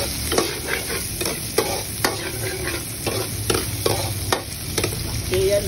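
Metal ladle scraping and clinking against a wok, with repeated irregular clinks, as chopped ginger and onion sauté in hot oil with a sizzle underneath.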